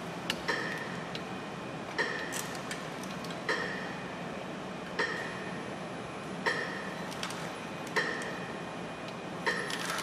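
Regular ticking like a metronome, one sharp ringing click about every second and a half, with fainter small clinks between the ticks over a steady low hum.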